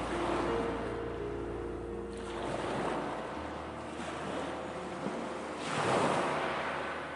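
Ocean waves washing in and out, with a swell building to a peak about six seconds in and then ebbing. A soft held music pad sits faintly underneath.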